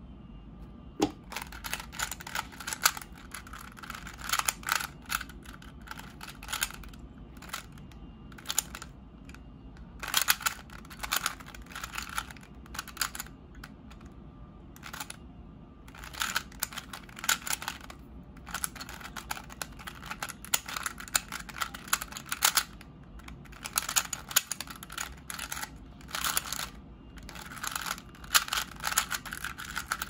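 Old Diansheng 3x3 Rubik's-type cube being solved fast: its plastic layers clack and click in rapid bursts of turns, broken by short pauses between sequences.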